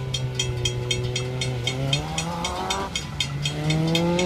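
Railroad crossing bell ringing at about four strikes a second while the crossing gates rise, stopping near the end. Under it, cars pull away across the tracks, their engines rising in pitch as they accelerate.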